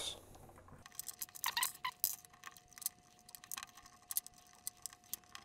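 Small metallic clicks and clinks of a hex key turning a screw into a 3D-printed plastic part, tightening it to pull a nut into its nut trap, busiest about one and a half to two seconds in. A faint steady tone sounds underneath from about a second in.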